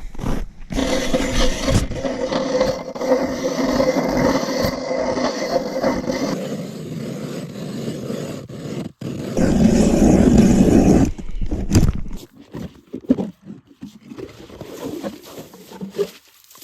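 A powered ice auger running and cutting through the ice in two bursts, a long one followed by a shorter one a few seconds later. Footsteps crunching in snow come near the end.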